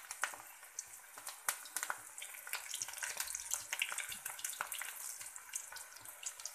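Batter-coated vegetable pieces deep-frying in hot oil in a wok: a continuous sizzle full of sharp crackling pops as handfuls of coated veggies are dropped in.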